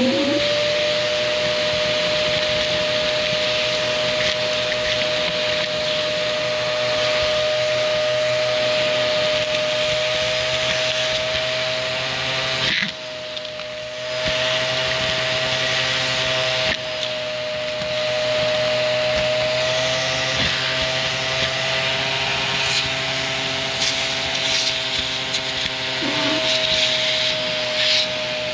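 Vacuum cleaner motor reaching full speed at the start, then running steadily with a high whine over the airflow hiss. About 13 seconds in the sound drops and thins for about a second before coming back. Faint crackles near the end.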